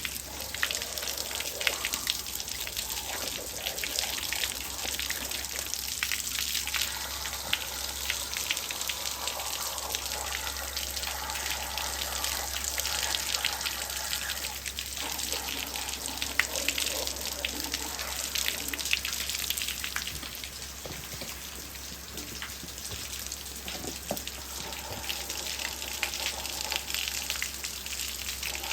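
Water spraying into a Nissan Y30 V6 cylinder block through its core plug holes, a steady splashing with crackling spatter, flushing out casting sand and rust.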